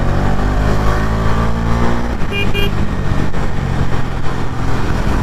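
Bajaj Dominar 250's single-cylinder engine running at a steady cruising speed, with wind rushing past. About two and a half seconds in, a vehicle horn gives two short beeps.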